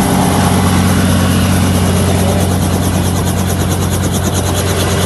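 Helicopter turbine and rotor running steadily, a constant low hum with a fast, even rotor-blade chop in the hiss that grows clearer after about two seconds.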